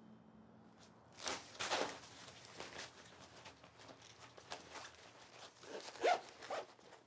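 A zipper pulled in two quick rasps about a second in, followed by rustling and handling noises and a sharper rasp near the end.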